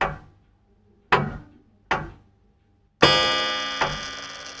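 Short musical stinger between broadcast segments: sharp struck hits that fade quickly, in a repeating long-short rhythm, with a ringing chord about three seconds in.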